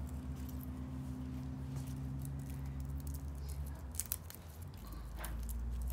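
Fingers peeling the papery skins off garlic cloves: faint crackling with a few sharper ticks about four and five seconds in, over a steady low hum.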